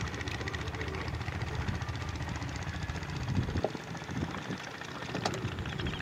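An engine running steadily with an even, rapid beat, with a few short knocks about halfway through and later on.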